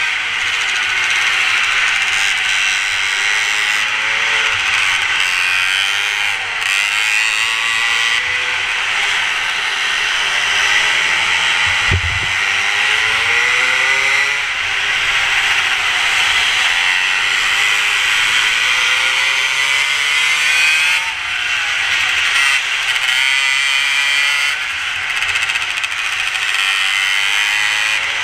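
Mini moto engine buzzing, its pitch rising and falling again and again as the bike speeds up and slows for the corners, over a steady hiss. One short low thump about halfway through.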